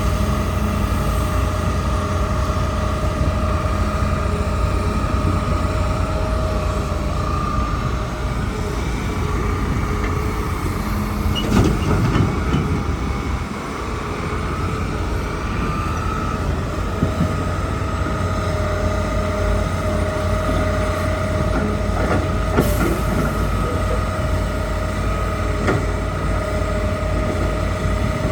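Hitachi excavator working: its engine runs steadily under load with a constant high whine, and a few metallic knocks, the loudest about twelve seconds in and another near the 23-second mark.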